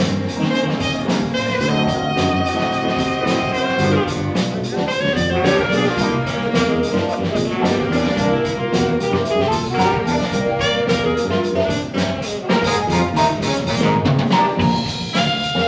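Jazz big band playing live: saxophones, trumpets and trombones in busy, rhythmic ensemble lines over drum kit, with piano and bass.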